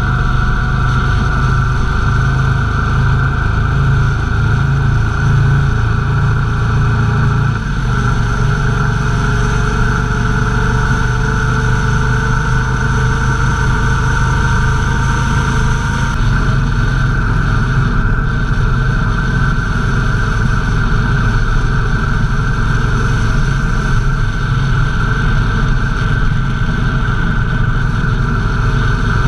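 Motorcycle engine running steadily while riding at road speed. Its pitch climbs slowly, and the engine note changes about eight and sixteen seconds in.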